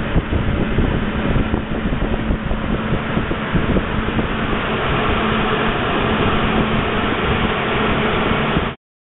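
Steady rushing noise with heavy low rumble and a faint steady hum, which cuts off suddenly near the end.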